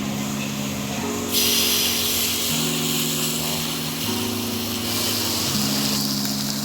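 Background music of sustained chords that change about every one and a half seconds, joined about a second and a half in by a steady hiss that starts suddenly.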